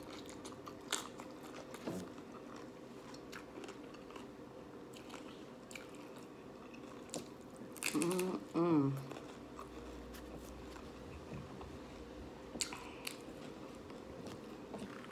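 Hard-shell corn taco being bitten and chewed close to the microphone: scattered crisp crunches of the shell, with a short wavering hum from the eater about eight seconds in.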